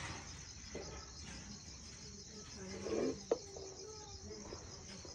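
Crickets chirping steadily in a continuous pulsing chorus, with light handling of dishes and a single sharp click of a plate or utensil about three seconds in.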